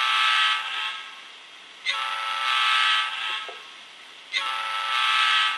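Digitrax DCC sound decoder in an Atlas SD7 model diesel locomotive sounding its diesel air horn through its small speaker: a blast ends about a second in, a second blast follows, and a third starts near the end, each lasting about a second and a half.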